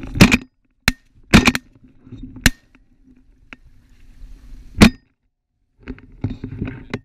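A series of sharp bangs and knocks, about five in all and irregularly spaced, picked up by a camera mounted on a shotgun, with a low wind rumble between them. The sound cuts out abruptly to silence twice.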